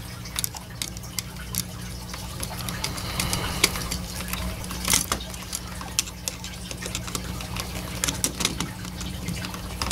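A screwdriver working the silver terminal screw of a household electrical outlet while the plastic receptacle is handled: scattered small clicks, ticks and scrapes over a steady low hum.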